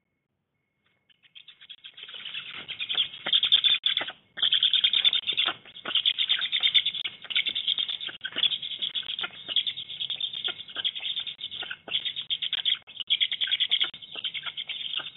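Young black storks on the nest calling loudly in a fast, continuous squeaky chatter, mixed with wing flapping and sharp clicks. It starts about a second in, with a brief pause around four seconds.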